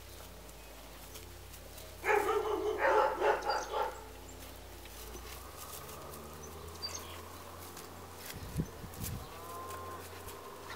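Golden retriever puppies barking and yapping in one choppy burst of about two seconds, starting about two seconds in.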